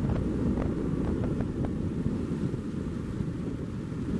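Steady low rumble of wind buffeting the microphone, with a few faint light ticks early on.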